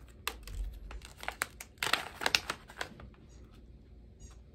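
Foil tea pouch crinkling and crackling as it is handled and opened, dying away about three seconds in.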